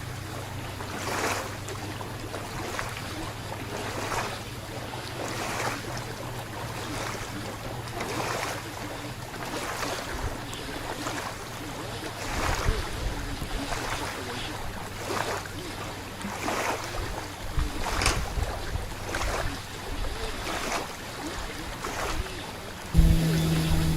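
Water swishing against a small boat in regular strokes about every second and a half, over a steady low hum, with wind rumbling on the microphone. About a second before the end, a louder motor drone starts suddenly.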